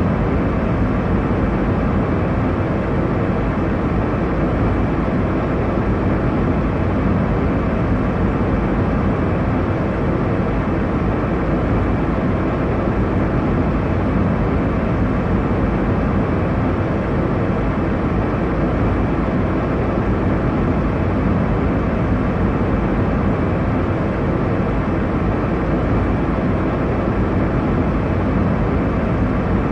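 Airliner cabin noise in flight: a steady, even rumble and hiss, heaviest in the low end, with no change in level.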